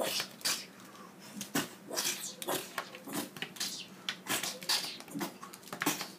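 Two plastic action figures being clashed together in a mock fight, with rough growl-like fighting noises made by mouth: irregular clacks and bursts, several a second, without a break.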